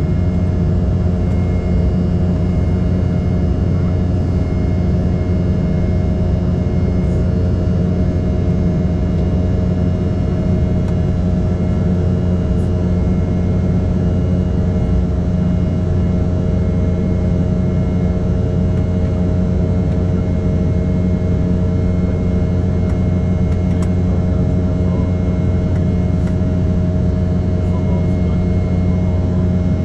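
Steady in-cabin drone of an Embraer E195 jet airliner: engine hum and airflow, with a low rumble and several steady whining tones, even and unchanging throughout.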